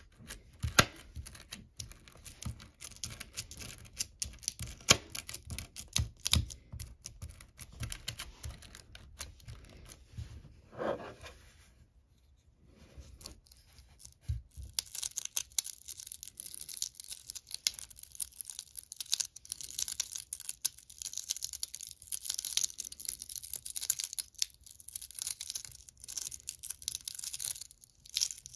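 Hundreds of small, smooth magnetic ferrite pebbles clicking against each other and the metal tin as fingers press and stir them. At first the clicks are scattered; after a brief quiet pause around the middle they run together into a dense, continuous crackling rattle.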